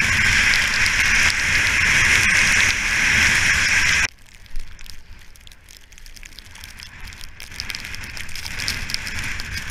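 Skis hissing over fresh powder snow at speed with wind rushing over a helmet-mounted action camera. About four seconds in it drops suddenly to a much quieter stretch of faint snow crackle, and the hiss builds again near the end.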